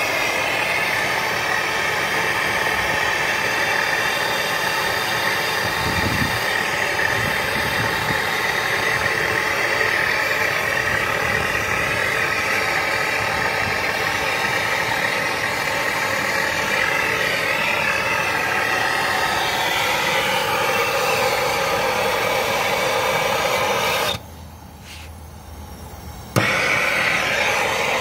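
Steady mechanical running noise, like a motor or machine running continuously. It drops away sharply for about two seconds near the end, then comes back.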